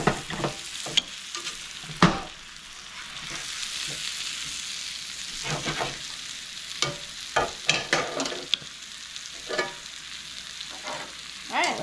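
Potatoes, kielbasa and peppers sizzling in a cast-iron skillet, with a utensil scraping and knocking against the pan now and then. A sharp knock about two seconds in is the loudest.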